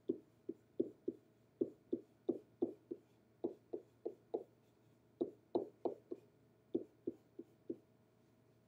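Pen tapping and knocking against an interactive whiteboard as chemical structures are drawn stroke by stroke: about twenty short knocks at an uneven pace of two or three a second.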